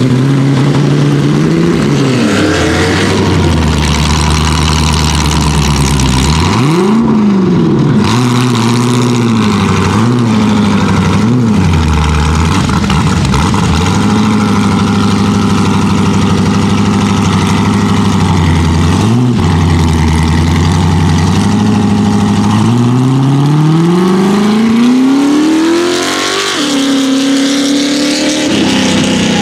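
Rock bouncer buggy's engine being revved hard under load, its pitch repeatedly swinging up and down as the throttle is worked, then climbing steadily for several seconds near the end before dropping off.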